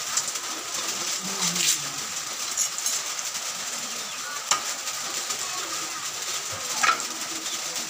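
A slippery eel being handled and rubbed in a stainless steel bowl while its slime is cleaned off, with a few sharp clicks of metal against metal over a steady hiss.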